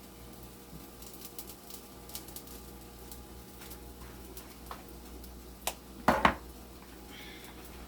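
A cooking utensil against a frying pan: scattered light ticks, then a knock and a couple of louder clanks about six seconds in, over a faint steady hum.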